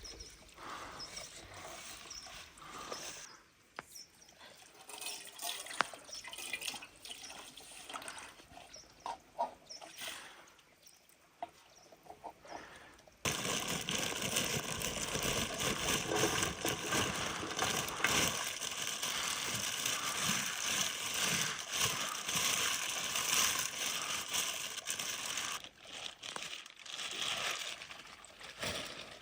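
Faint knocks and rustling, then about halfway through a sudden, steady rush of running water that fades away near the end.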